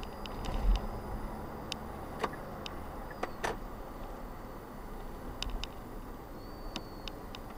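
Steady road and engine noise inside a moving car, picked up by a dashcam at about 60 km/h. A low thump about a second in is the loudest moment, and light clicks and ticks are scattered throughout.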